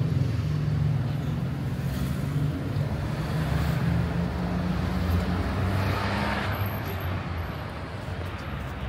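City street traffic: car engines running with a steady low hum, and one car passing about six seconds in.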